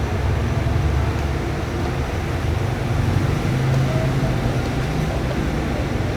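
Steady low rumble of machinery or traffic.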